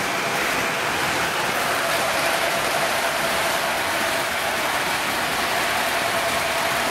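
Several O scale model trains running on metal track: a steady rolling rush of wheels and motors, with a faint steady whine.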